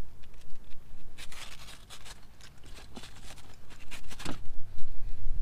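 Short scratchy scraping and tearing strokes, a few separate ones, as a knife cuts and gloved hands pull the mounting ring off an old factory door speaker.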